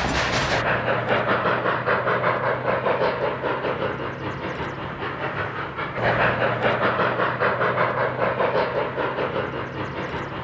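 Narrow-gauge steam train running, with a fast, even rhythmic beat over a steady low hum. The sound changes abruptly and gets louder about six seconds in.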